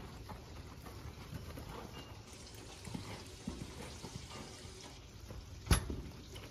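Horse walking on a soft dirt arena floor: faint, muffled hoofbeats, with one sharp knock near the end.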